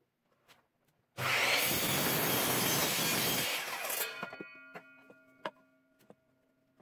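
Miter saw cutting through a wooden board at a 45-degree setting. The cut starts abruptly about a second in, runs steadily for about two and a half seconds, then dies away. A faint steady tone and a few light clicks follow.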